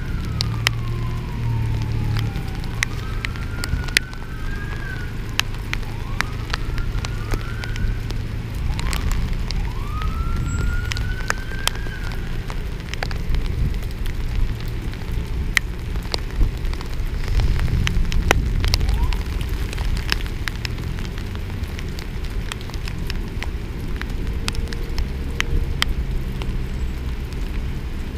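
Emergency vehicle siren wailing in repeated rising sweeps through the first half, fading out after about twelve seconds. Under it, steady rain noise with many raindrops tapping on the camera.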